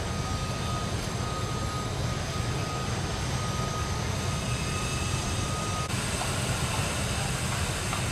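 Steady outdoor background rumble with a faint, steady high tone over it; the tone cuts off abruptly about six seconds in.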